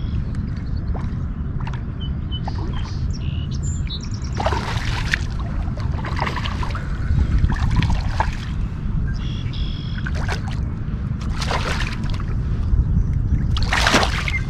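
A hooked fish thrashing and splashing at the water's surface in several bursts, the loudest near the end, over a steady low wind rumble on the microphone. Birds chirp faintly now and then.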